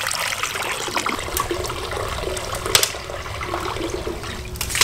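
Water gushing from a hose into a large cast-iron cauldron as it fills, with a few light knocks.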